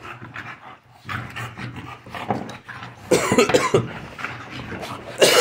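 American bully dogs play-wrestling over a chew toy, with dog play noises and scuffling, and two loud harsh bursts, about three seconds in and again near the end.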